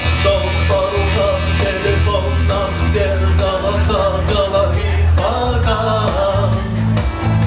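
Rock band music: a melody line over a strong, steady bass line and a regular beat, the arrangement of a cover song.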